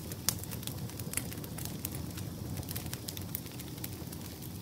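Wood campfire crackling, with frequent sharp irregular pops over a steady low rumble of the flames.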